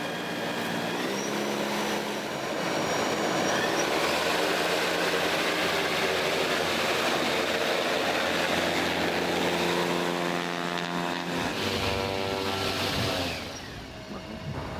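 Electric motor and propeller of a small experimental electric aircraft running as it taxis: a steady whine of several tones over a rushing noise, louder after about two seconds. Near the end the tones shift in pitch, then the sound falls away.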